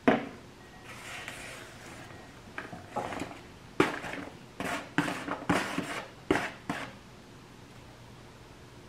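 Wooden chopsticks knocking and scraping against a plastic takeout clamshell and a ceramic bowl as food is tipped from one into the other: a sharp knock at the start, a short stretch of rustling, then a quick run of sharp clicks and knocks that stops about two seconds before the end.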